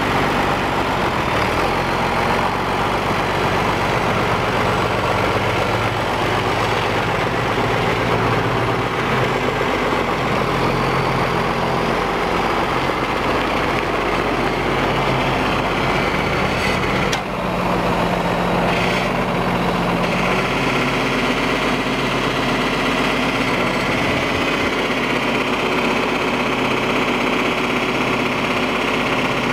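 John Deere 4630 tractor's six-cylinder turbocharged diesel engine running steadily. A little past halfway there is a short click, after which the engine note changes.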